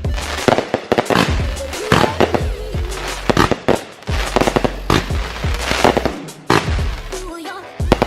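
Consumer fireworks going off in rapid succession, many sharp bangs and crackling bursts close together, with background music underneath.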